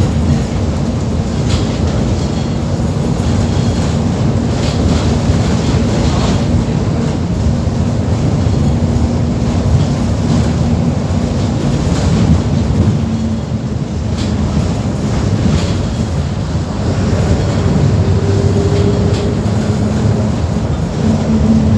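Mercedes-Benz OF-1721 BlueTec 5 bus's diesel engine running steadily, a constant low drone with a few short rattles.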